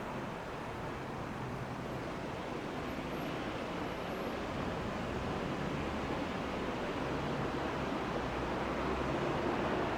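Steady rush of passing road traffic with a low engine hum, growing gradually louder.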